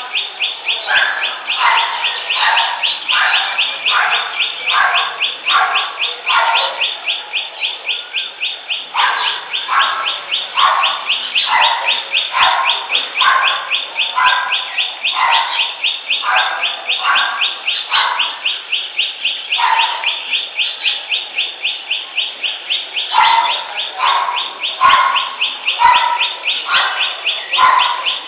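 Birds calling in a natural soundscape: a lower call repeated about twice a second in runs of several seconds, over a continuous fast, high-pitched pulsing trill and a steady thin high tone.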